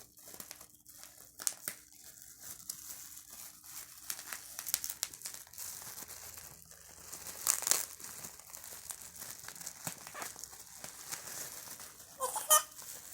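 Toy packaging crinkling and rustling as it is handled and opened, with scattered sharp crackles. A louder crinkle comes about halfway through, and a short, sharp squeak near the end.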